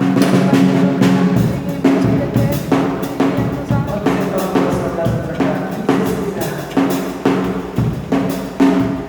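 Drum kit played by an untrained player: kick, snare and cymbal hits struck at an uneven, loose pace of somewhat under two a second, over a sustained low pitched tone.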